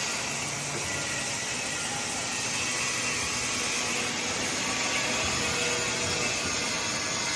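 Bodor laser cutting machine running: a steady hissing machine noise with a faint hum beneath it.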